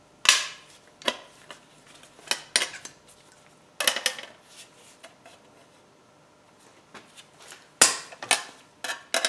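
Homemade hand-held hole punch working on a thin sheet-metal body panel: about eight sharp metallic clacks at uneven intervals, with a quiet spell in the middle. The loudest come about a third of a second in and again near the end.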